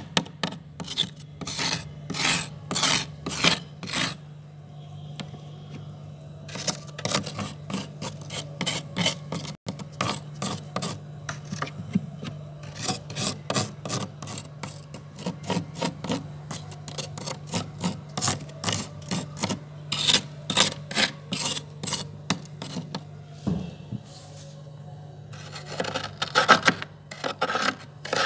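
Metal spoon scraping thick, powdery frost inside a freezer: quick rasping strokes in runs, broken by a couple of short pauses, over a steady low hum.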